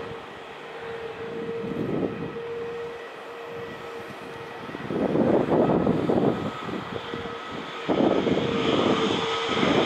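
Airbus A321neo jet engines running, a steady whine with a rushing noise that swells twice, about halfway and again near the end.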